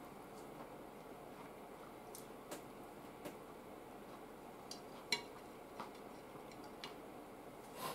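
Quiet chewing at a table, with scattered light clicks of chopsticks against a plate; the sharpest click comes a little after the midpoint.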